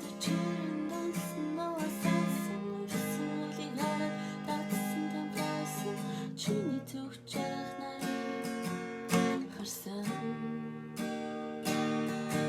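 Music: an acoustic guitar strummed in a steady run of chords.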